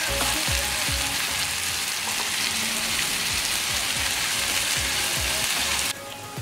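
Onion-and-tomato masala sizzling in an oiled frying pan, the sizzle cutting off near the end. Background music with a steady thumping beat runs underneath.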